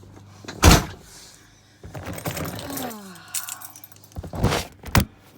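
A vehicle door thumps shut, then comes a stretch of rustling and scraping, and two more loud thumps near the end.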